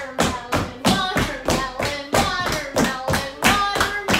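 Hand percussion keeping a fast, even beat: sharp taps about three to four a second, with short pitched sounds between the hits.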